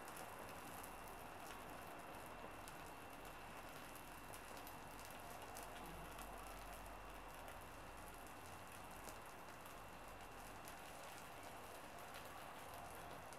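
Small wood fire crackling faintly: scattered small pops and ticks over a steady soft hiss.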